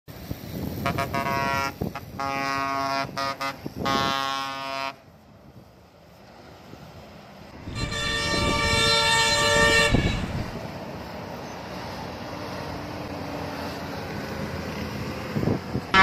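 Bus air horns sounding: a quick series of about four blasts over the first five seconds, then after a short lull one long blast of about two seconds. A bus engine runs in the remaining seconds.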